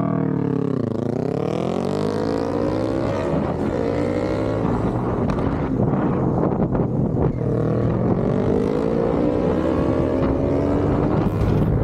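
Motorcycle engine running under way. Its pitch dips about a second in, climbs through the first half, then climbs again in the second half as it accelerates, over a steady low drone.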